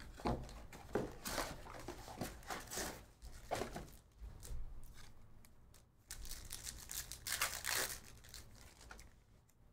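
Cardboard hobby box being opened and its foil card packs handled, rustling and crinkling in short bursts, then a foil Topps Chrome pack wrapper torn open with a longer crinkling tear, the loudest sound, in the second half.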